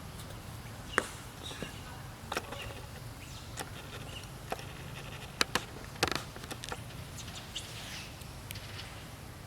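Outdoor ambience under a steady low hum, with several sharp clicks or snaps, two close together about five and a half seconds in, and faint high chirps.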